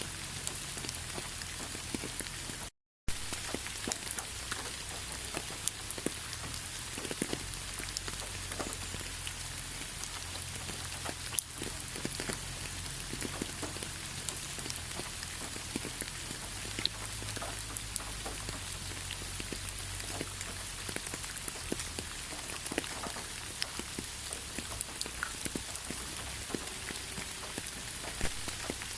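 Steady rain falling, with many separate drops ticking on surfaces over an even hiss. The sound cuts out completely for a moment just under three seconds in.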